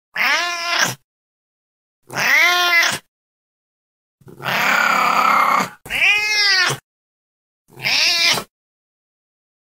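Domestic cat meowing five times, each meow rising and then falling in pitch. The third call, about four seconds in, is longer and raspy.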